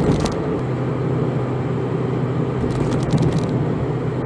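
Cabin noise of a Toyota van driving on a highway: a steady low hum of engine and tyres with a few faint ticks near the start and about three seconds in.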